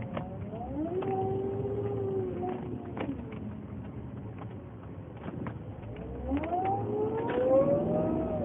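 Whirring whine from a 2007 Volvo S80, sounding like a Formula 1 car, its pitch gliding up and down and climbing near the end. The noise, of unknown cause, is worse when cold and louder on acceleration and turning.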